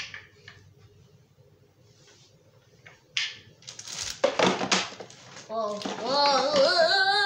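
Wooden toy train track pieces knocking and clattering as they are put into a storage bin, about three seconds in, then a child's wordless, drawn-out, wavering vocalizing near the end.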